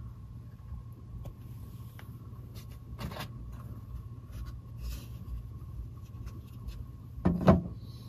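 Steady low room hum with a few faint clicks, and a short, louder low bump near the end.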